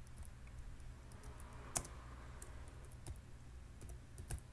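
Computer keyboard keystrokes: faint, irregular key clicks as a short line of text is typed, with one sharper click just under two seconds in.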